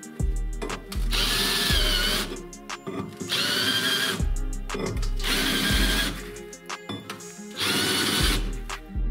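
Cordless drill driving a countersink bit into a steel plate, cutting in four bursts of about a second each.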